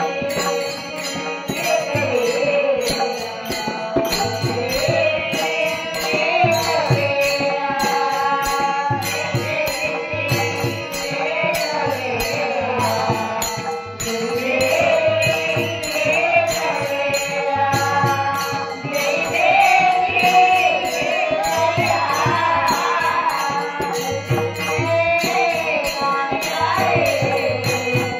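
Marathi gaulan bhajan: a woman sings a devotional melody over a group accompaniment, with jingling percussion and a drum keeping a steady beat.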